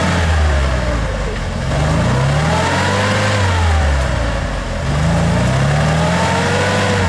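Mercedes-Benz G-Class off-roader's engine revving up and dropping back in about three surges as its wheels spin and churn through deep mud.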